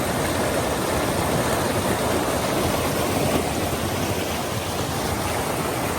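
Steady rush of water, an even and unbroken noise from a nearby stream or cascade.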